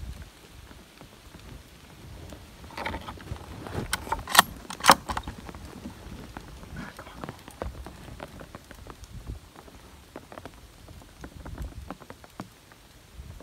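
Rain pattering, with scattered drop ticks. About four and five seconds in come two sharp knocks, the loudest sounds here, as the camera is moved.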